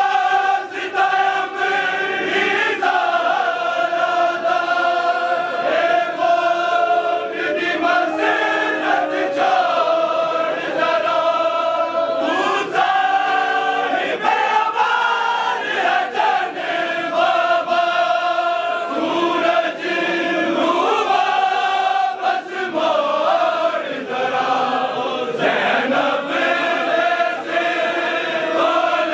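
A matami dasta, a group of men, chanting a Punjabi noha (mourning lament) in unison, with long held notes.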